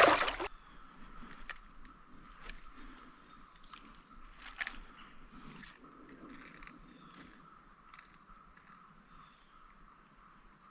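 Steady high insect chorus from the surroundings, with a short high chirp repeating about once a second, and a few faint clicks.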